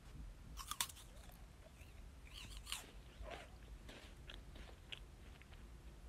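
Crisp meringue cookie crunching as it is bitten: a cluster of sharp crunches a little under a second in, then quieter, scattered crunching as it is chewed.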